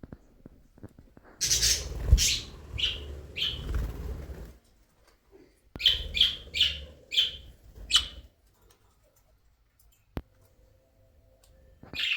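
Budgerigar giving two runs of loud, sharp, high chirping calls, five or six calls each, over a low rustling, then one more call near the end.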